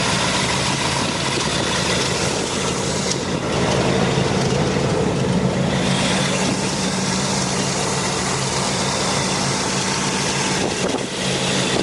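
A 1973 Chevrolet Corvette's 454 LS4 big-block V8 idling steadily, running evenly and in healthy condition.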